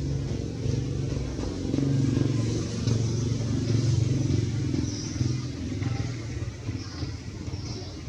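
A motor vehicle engine running with a low hum that swells and eases, with a few short high chirps in the second half.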